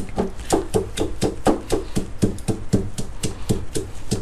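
Stone pestle pounding sliced lemongrass in a granite mortar: a steady run of knocks, about four strikes a second, each with a short dull ring from the stone bowl. This is the first stage of crushing a Thai curry-style paste, with the lemongrass pounded on its own before the wetter shallots go in.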